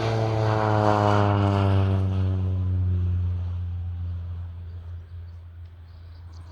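Crop-dusting airplane's propeller engine flying past. Its pitch drops as it goes by, and the sound fades away over the following few seconds.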